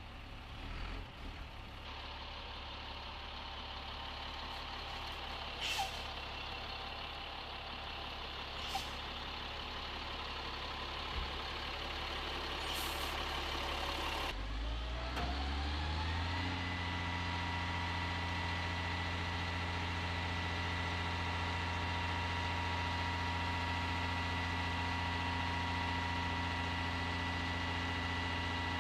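HIMARS launcher truck's diesel engine idling steadily, with three brief sharp sounds in the first half. About halfway through, a whine joins it, rising in pitch over a couple of seconds and then holding one steady tone over the engine as the launcher's hydraulic loading system runs.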